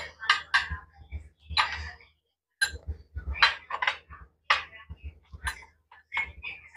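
Spoons and forks clicking and scraping against plates as food is handled at a table: a string of short, irregular clinks and knocks, picked up close by clip-on microphones.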